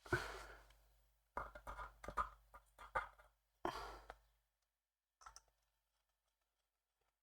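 Small clicks and taps of a screwdriver and tiny screws against plastic model parts. There is one knock at the start, a cluster of quick clicks after about a second and a half, another knock shortly after, and a last faint tick a little past five seconds in.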